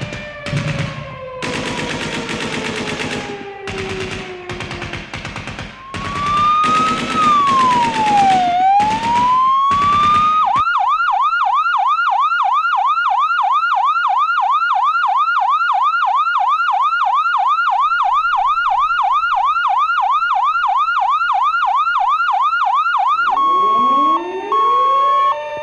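Electronic police siren: a rising-and-falling wail that switches about ten seconds in to a fast yelp, several sweeps a second, then changes near the end to a steady tone with rising sweeps. Before the wail comes a run of sharp, rapid hits with falling tones.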